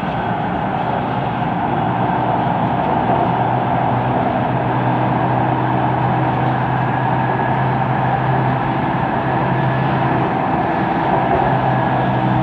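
Siemens Inspiro metro train running, heard from inside the car: steady wheel-on-rail rolling noise with a low hum, the weird rolling noise this train is known for.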